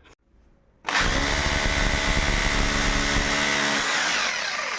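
Electric hammer drill boring a hole into the wall: it starts about a second in, runs steadily at full speed for about three seconds, then winds down with a falling whine as the trigger is released.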